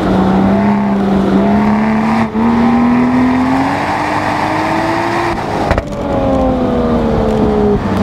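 Toyota Supra's 3.0-litre turbocharged inline-six pulling at full throttle, its note rising steadily for about five seconds with a brief dip about two seconds in. Near six seconds the throttle lifts and the engine note falls as the car slows, with tyre and wind noise throughout, heard from inside the cabin.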